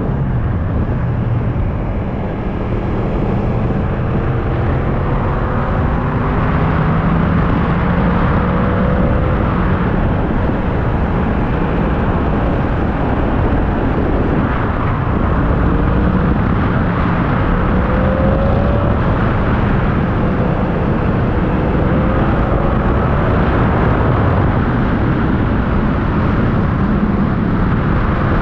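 Motorcycle engine running at road speed under heavy wind rush over the microphone. The engine note climbs several times as the rider rolls on the throttle.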